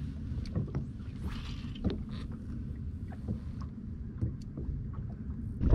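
Low steady rumble on the deck of a bass boat, with scattered light clicks and taps from the anglers' fishing tackle and footing as they cast and reel.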